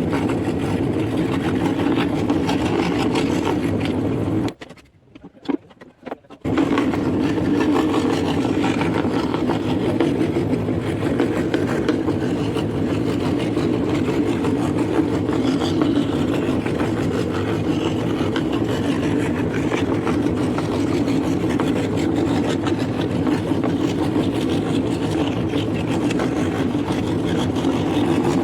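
Scroll saw running steadily, stopping about five seconds in and starting up again about two seconds later.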